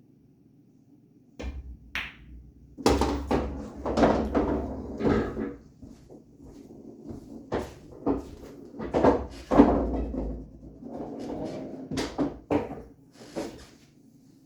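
Pool balls on an 8-foot bar table: sharp clicks of balls hitting each other and knocking into cushions, over a low rumble of balls rolling across the bed. The sound comes in three busy stretches, with single knocks between them.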